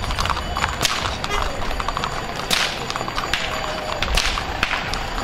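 A few sharp, irregular cracks and knocks over steady outdoor background noise.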